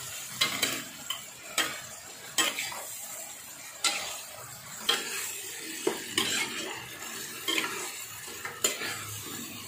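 Metal spatula stirring fish and green-chili sauce in a non-stick wok, knocking and scraping against the pan about once a second, unevenly. Under it runs a steady sizzle from the simmering sauce.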